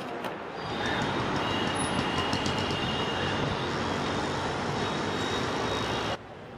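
Train passing close by: a loud, steady rumble of wheels on rail, with a faint, steady high squeal above it. It cuts off suddenly near the end.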